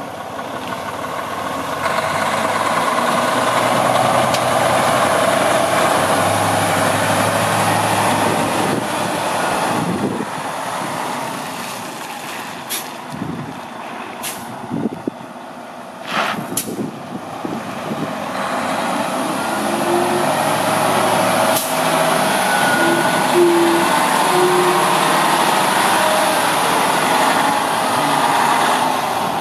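Freightliner Cascadia tandem-axle semi tractor's diesel engine running as the truck drives off, fading in the middle and growing louder again as it returns, with a few short air-brake hisses.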